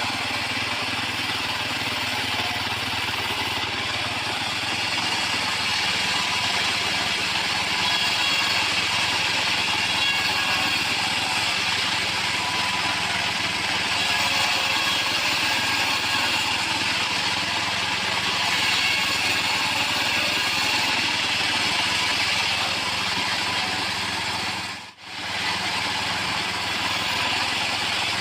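Engine-driven portable bandsaw mill running steadily, its motor and blade working timber. There is a brief dropout about 25 seconds in.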